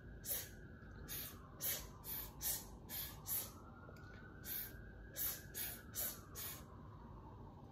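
A rapid series of short, sharp hissing exhales, about two a second with a brief pause about halfway. Each puff is pushed out by a quick pull of the abdominal muscles in a singing breath-support exercise.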